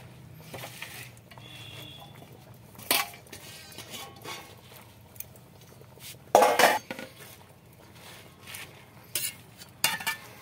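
A metal utensil knocking and clinking against an aluminium pan of blanching spinach, a few separate knocks with the loudest about six and a half seconds in, over a steady low hum.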